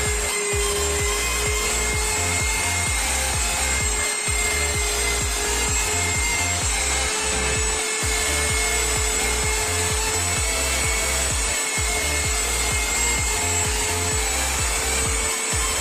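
Electric wall sander with a round pad and dust-extraction shroud running steadily, its pad grinding old paint and putty off a plastered wall with a continuous rasping whine.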